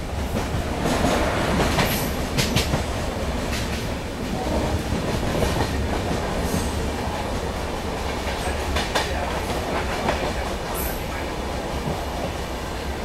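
Brindavan Express passenger train running at speed: a steady rumble of wheels on the rails, with a few sharp clicks as the wheels pass over rail joints.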